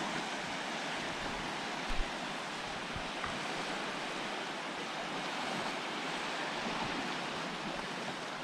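Gentle surf washing steadily on the shore, with a brief low knock about two seconds in.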